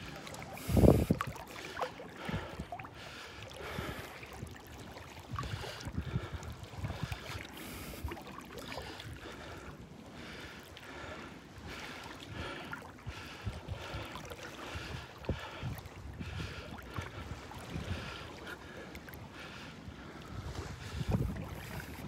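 Gulf water sloshing and lapping, with wind buffeting the microphone in irregular low knocks and a louder thump about a second in.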